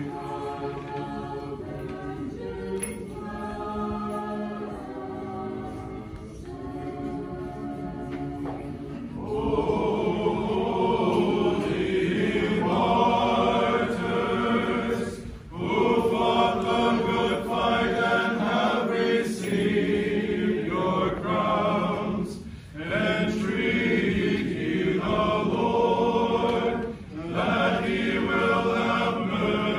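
Choir singing Orthodox liturgical chant a cappella, in long sustained phrases with brief pauses between them. It grows louder about nine seconds in.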